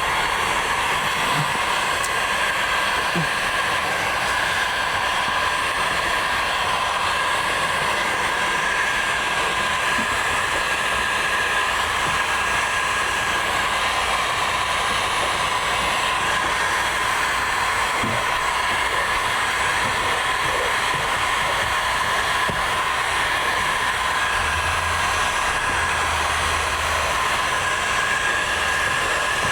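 Heat gun blowing steadily with a constant whine, heating vinyl film to shrink and conform it.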